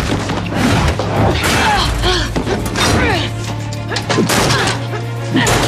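TV drama soundtrack: a dramatic score over a steady low drone, with short bits of voice and several thuds, the heaviest a hit about four and a half seconds in.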